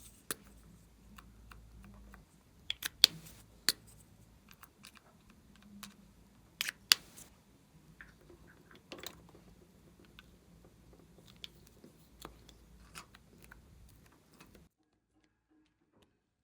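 Glossy slime being squeezed and stretched by hand, with irregular sharp clicking pops as trapped air bubbles burst. The sound stops abruptly about fourteen and a half seconds in.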